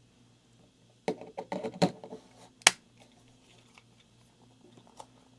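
Plastic clicks and handling from a Black Diamond Storm headlamp's newly fitted back piece and latch: a run of small clicks and rustles about a second in, then one sharp snap, with a faint click near the end.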